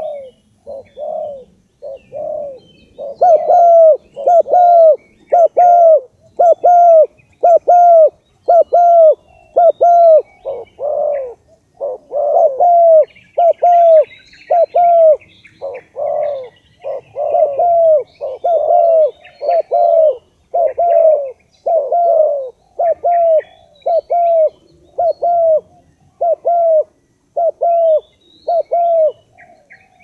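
Bird-lure call: a steady, unbroken run of short, arching cooing notes at about one and a half a second, softer at first and loud from about three seconds in. Faint high chirps of small birds lie behind it.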